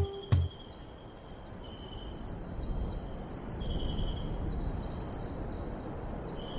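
Steady high-pitched insect chirring, with a fainter second call coming and going a few times, over a soft noisy wash. A last plucked guitar stroke sounds right at the start.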